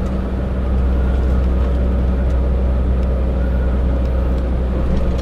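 Steady low drone of a tractor-trailer truck's engine and road noise heard inside the cab while cruising on a highway.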